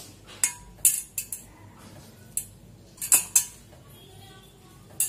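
Stainless steel bowl clinking and knocking as a hand scoops and gathers mashed potato filling from it: a handful of short, sharp taps, the loudest about a second in and about three seconds in.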